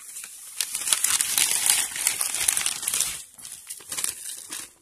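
An empty plastic detergent pouch crinkling and crackling in the hands while loose coco peat is packed into it, with short dips in the rustling as the hands pause.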